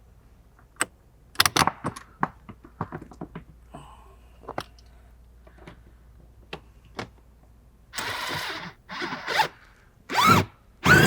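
A seat bolt being run in with a 14 mm socket: a string of sharp clicks and scrapes of the socket and ratchet on the bolt. Then several short whirring bursts of a power driver, rising in pitch, about eight seconds in and near the end; the last burst is the loudest.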